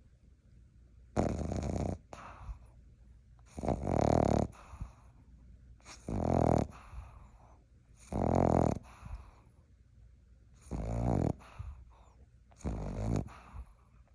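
Boston Terrier puppy snoring in its sleep: six loud snores, about one every two seconds, each with a rattling flutter, and quiet breathing between them.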